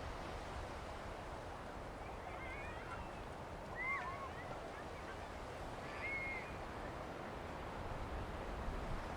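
Steady wash of wind and surf on a sandy beach, with a few short, arched bird calls breaking through: one a couple of seconds in, one at about four seconds, and one near the middle.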